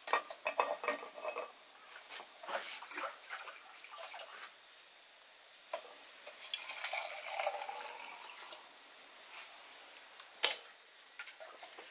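A small metal kettle with a hinged lid clinks and rattles as it is set on a wood-stove's iron grate. A few seconds later water is poured into it from a plastic dipper, and near the end its lid shuts with one sharp click.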